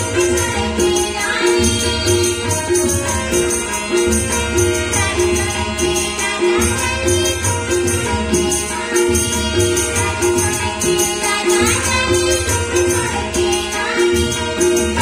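Chhattisgarhi Ramayan-mandli devotional music: singing over a keyboard organ, with tabla and nal drums keeping a steady rhythm and a jingling percussion beat about twice a second.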